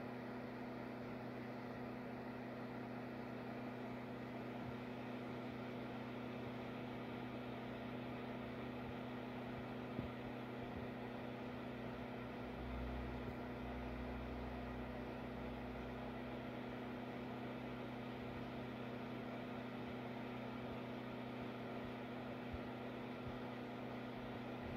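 Steady low electrical or mechanical hum over a faint hiss, with a single click about ten seconds in and a brief low rumble a few seconds later.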